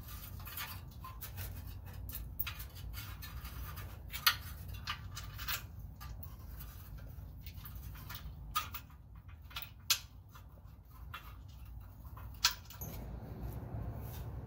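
Hands scraping and clicking exhaust flange gaskets and bolts into place against the flange, with three sharp clicks standing out, over a low steady hum.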